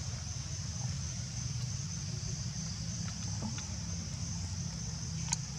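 Insects droning steadily at a high pitch over a continuous low rumble, with a few faint ticks and one sharp click near the end.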